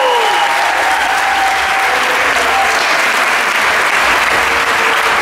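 Crowd applauding steadily, with a few voices calling out over the clapping.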